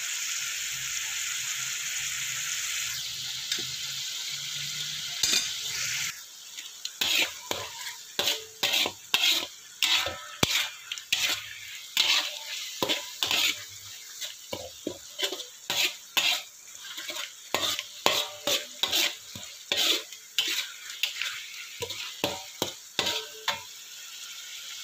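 Chopped giant clam meat frying in a wok with a steady sizzle. From about seven seconds in, a metal spatula stirs and scrapes against the wok in sharp strokes, about two a second, over the sizzle.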